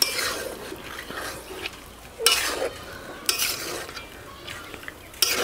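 Chicken pieces frying in spice paste in a metal karahi, stirred with a metal spatula. The sizzling hisses under a handful of scraping stirring strokes, with louder strokes at the start, about two and three seconds in, and near the end.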